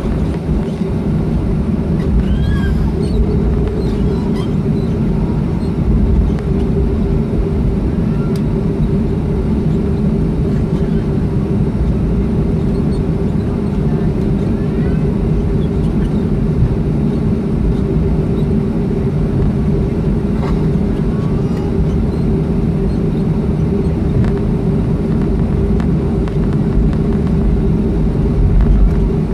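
Steady engine drone heard from inside a vehicle moving slowly over the ground: a constant low rumble with a held mid-pitched hum.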